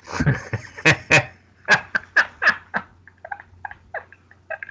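People laughing hard in a rapid string of short bursts, which grow weaker and breathier in the second half.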